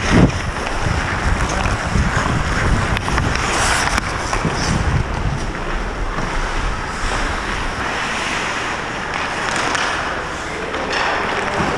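Wind rumbling on a helmet-mounted camera's microphone as the wearer skates, over the scraping hiss of hockey skate blades on ice. A sharp knock just after the start and a few fainter clicks.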